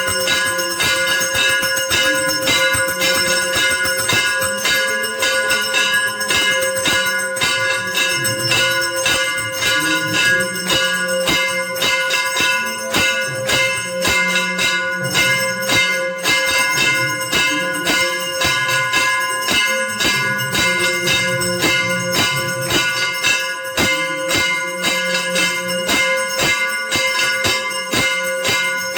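Hindu temple bells rung rapidly and without pause during an aarti, strike after strike several times a second, their ringing tones overlapping into a steady clangour. A lower, shifting sound runs underneath.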